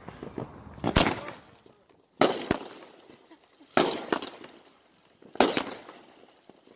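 Aerial fireworks bursting overhead: four loud bangs about a second and a half apart, each dying away over about half a second.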